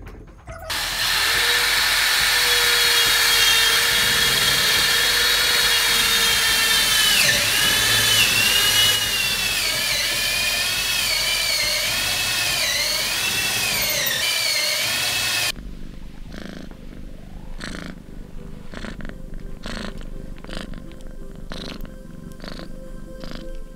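Corded power tool running under load: a loud high whine whose pitch dips and recovers several times as it bites into the work. It cuts off sharply about two-thirds through, and a tabby cat purrs in slow, even pulses while being stroked.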